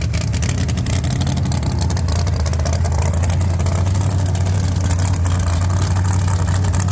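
A drag-race car's big engine running at a loud, steady, choppy idle with rapid exhaust pulses as the car rolls slowly away.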